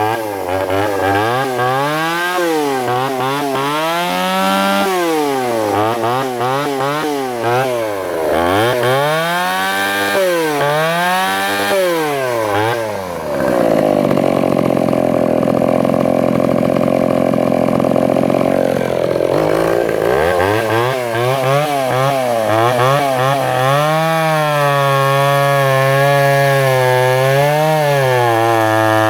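Echo CS-302 30cc two-stroke chainsaw revving up and down over and over. About halfway it is held at high revs under load for some six seconds, cutting into timber, then it revs again and runs fairly steadily near the end.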